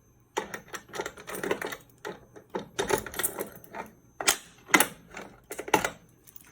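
Manual fire alarm pull stations being reset by hand: a run of irregular metallic clicks and rattles from the reset key and the pull station parts, with a few sharper clacks in the second half.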